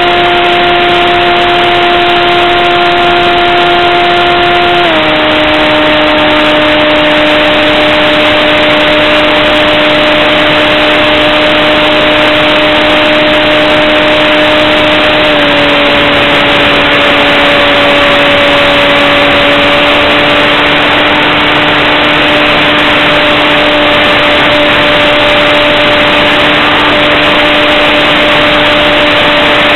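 RC airplane's motor and propeller running loudly at steady cruise, heard from the onboard camera over a constant rush of noise. Its pitch steps down about five seconds in, as the throttle is eased back, and drops a little again about halfway through.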